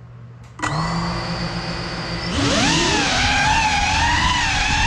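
Small FPV quadcopter's motors starting up with a steady whine, then throttling up a couple of seconds in with a rising whine whose pitch wavers up and down as the throttle changes during takeoff.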